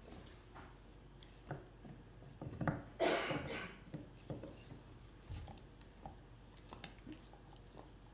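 Dog gnawing a bone, with scattered small clicks and scrapes of teeth on bone, and one louder rasping noise about three seconds in.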